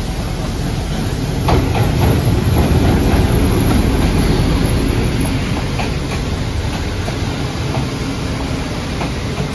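A train running on the rails: a loud, steady rumble of wheels with a few sharp clacks. It swells about a second and a half in, then slowly eases.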